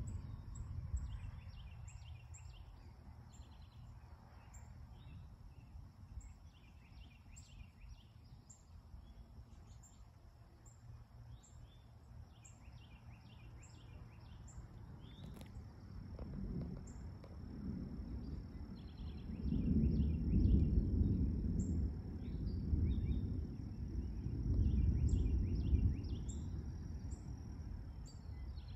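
Low rolling thunder that builds over the second half, with two long swells, under short repeated bird calls and a steady high insect buzz.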